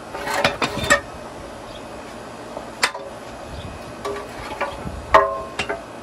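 Hammer striking steel car suspension parts, with a metallic ring after each blow. There is a quick cluster of blows at the start, a single blow about three seconds in, and two more near the end, with lighter knocks between.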